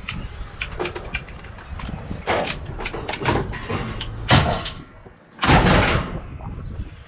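Scrap metal being handled and loaded into a van: a run of knocks and clatters, then several loud bangs, the heaviest near the end.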